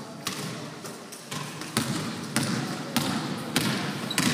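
A basketball bouncing on a hardwood gym floor as it is dribbled, about one bounce every half second or so. Each bounce echoes in the hall.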